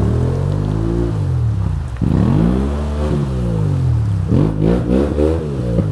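Motorcycle engine revved over and over as it sits stuck in a river crossing. Each rev rises and falls in pitch, and the revs come quicker near the end.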